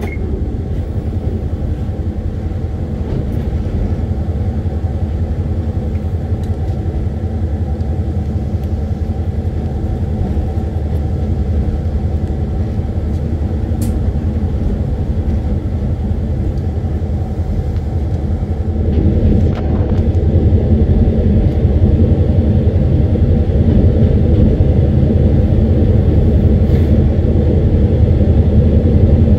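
Diesel locomotive running along the track: a steady low engine drone with wheel rumble, growing louder about 19 seconds in.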